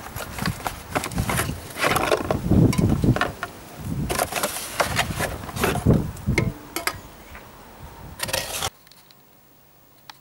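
Handling noise of a cardboard product box held close to the microphone: irregular rustling, knocks and scrapes that stop abruptly near the end.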